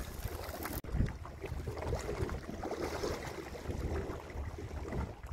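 Wind buffeting the microphone over the rumble and slap of choppy sea against a small boat's hull, with a dull thump about a second in.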